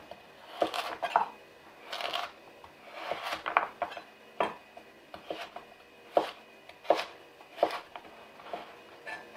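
Chef's knife slicing a raw carrot on a wooden cutting board: separate knocks of the blade striking the board, irregular at first with a few scrapes, then about one cut a second in the second half.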